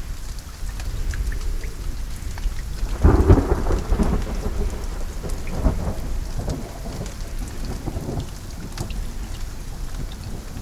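Steady rain with scattered drop ticks, and a roll of thunder that rumbles in about three seconds in, peaks briefly, then fades over several seconds.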